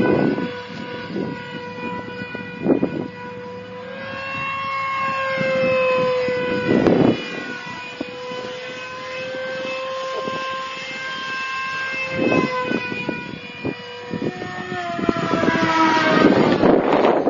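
Electric ducted-fan motor of a radio-controlled F-15 jet whining in flight: a steady high whine with overtones whose pitch drifts gently up and down. Near the end it grows louder as the jet passes low and close, and its pitch drops. A few short thumps sound along the way.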